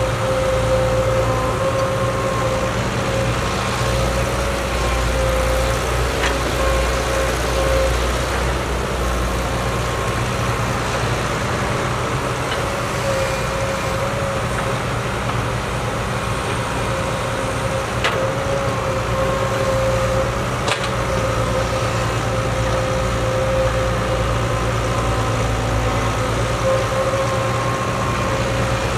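Caterpillar tracked excavator's diesel engine running steadily under load as it digs and swings, with a steady high tone over the engine and a few short knocks near the middle.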